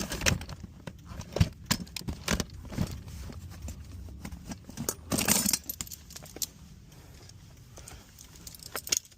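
Irregular light clicks and small metallic jingling as fuses are pulled and tried in a car's fuse box by hand, with a brief louder rustle about five seconds in.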